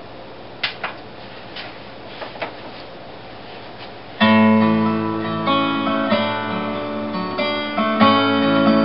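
A few faint knocks, then about four seconds in the instrumental introduction of the song's accompaniment begins suddenly: guitar with held chords.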